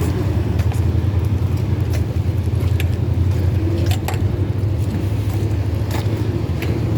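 Steady low rumble of a car on the move, with a few light clicks scattered through it.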